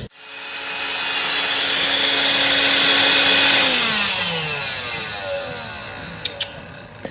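An electric motor appliance running with a steady whine and hiss, then switched off about halfway through, its pitch falling as it spins down. Two light clicks near the end.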